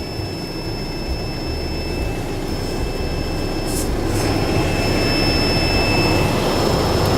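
Cummins 3.8-litre diesel engine of a Dongfeng dump truck running with the tipper controls switched in, its revs brought up so that it grows steadily louder, with a thin high whine over the engine noise.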